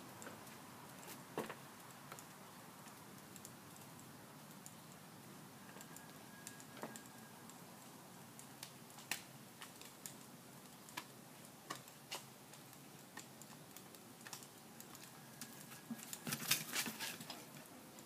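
Faint, scattered clicks and taps of a dog's claws on stone paving slabs, with a quicker run of them near the end as the dog walks off.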